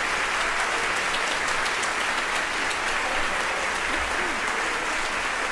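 A large audience applauding steadily, a dense, even clatter of many hands clapping.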